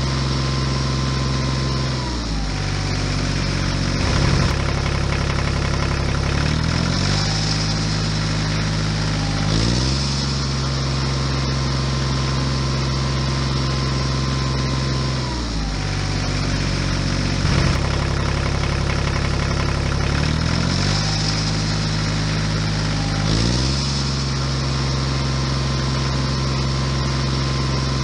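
Looped tractor engine sound effect. The engine note drops to a lower pitch about two seconds in, then climbs back in steps. The same cycle repeats almost identically about halfway through.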